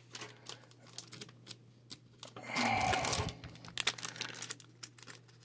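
Thin plastic card sleeves rustling and crinkling as Pokémon cards are slid into them, with small clicks and taps of card and plastic throughout and a louder rustle lasting about a second near the middle.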